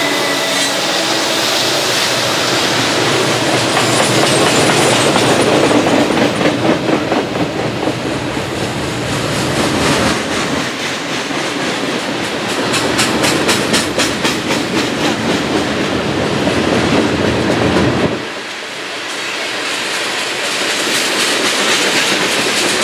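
Freight train boxcars and tank cars rolling past close by: a steady rumble of steel wheels on rail, with rhythmic clickety-clack as the wheels cross rail joints. The low rumble drops away for a moment near the end.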